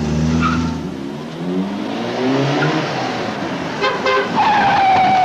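Car engine running and revving in a street, then a car horn: a few short toots about four seconds in, followed by one held note for about a second near the end.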